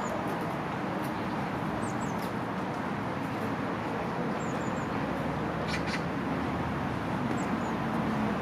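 Outdoor city-park ambience: a steady background din, with short high bird chirps every couple of seconds.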